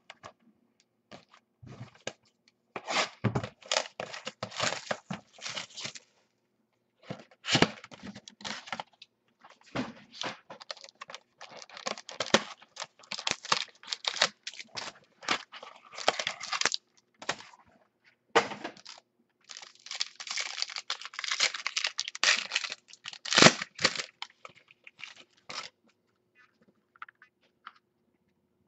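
Foil wrapper of a trading-card pack being torn open and crinkled, with cardboard box handling. The rustling comes in long busy stretches broken by a few sharp knocks and snaps, the loudest about two-thirds of the way through, and dies down to faint rustles near the end.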